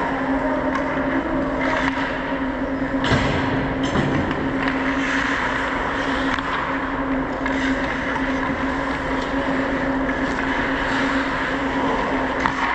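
Ice hockey play heard on the ice: a steady rush of skates on ice over a constant hum, with a couple of sharp knocks, one about three seconds in and one near the end.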